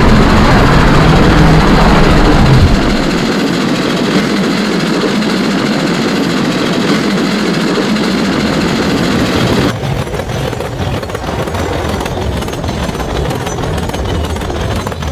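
Designed monster-train sound effect built from train noise. It opens loud and dense with a low tone for the first few seconds, then settles into a steady rumbling noise. About ten seconds in it cuts abruptly to a quieter, clicking rattle over a low hum.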